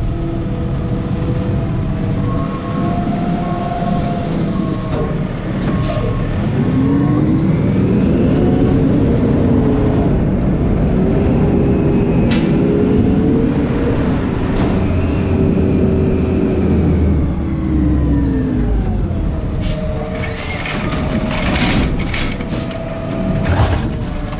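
Peterbilt McNeilus ZR side-loader garbage truck driving between stops: its engine pitch rises as it pulls away, holds steady, and falls as the truck slows. Clanks and knocks follow in the last few seconds as the automated arm reaches out to the next cart.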